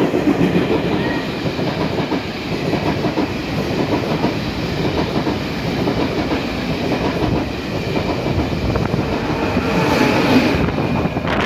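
Express passenger train running through the station at speed without stopping, a loud continuous rush of wheels on rail with clickety-clack, growing a little louder as the rear power car passes near the end. No horn is sounded.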